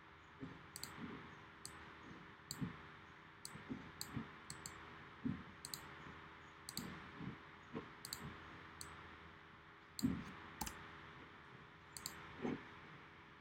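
Computer mouse clicking at irregular intervals, about one or two sharp clicks a second, each with a dull low knock, over a faint steady hiss.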